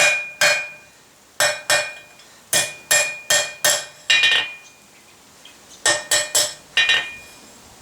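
Blacksmith's hammer striking a hot mild-steel bar on an anvil in short groups of blows, each blow ringing briefly. There are about a dozen blows in all, with pauses between the groups, the longest coming just before the last four.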